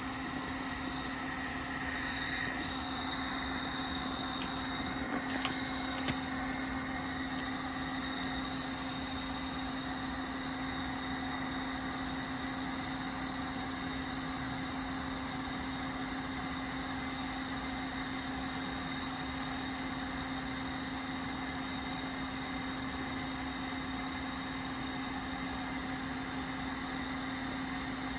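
Kenworth semi truck's diesel engine idling steadily. A hiss of air sounds for the first couple of seconds, and there are a few faint clicks about five to six seconds in.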